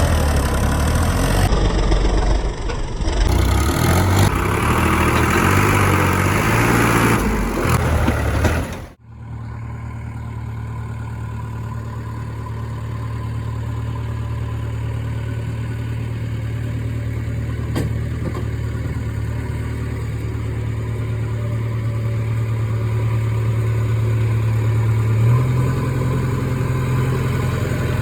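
Heavy diesel engine running. For the first nine seconds it is loud and busy, then it cuts off suddenly to a steady idle, whose pitch steps up slightly near the end.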